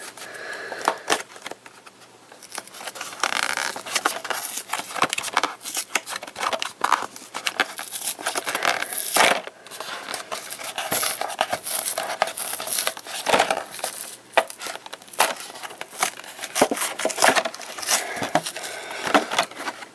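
Plastic toy packaging being worked open by hand: irregular crinkling and crackling with many sharp clicks as the plastic is pulled and bent.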